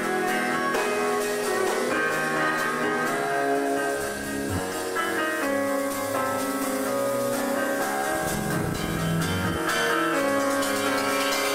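An instrumental chamber-rock band playing live: long bowed violin-family notes over guitar and piano.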